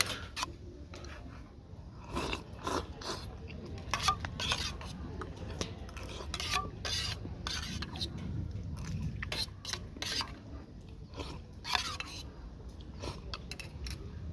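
Metal utensils scraping and clinking against a pan and dishes in irregular, sharp strokes while food is handled. A steady low background runs underneath.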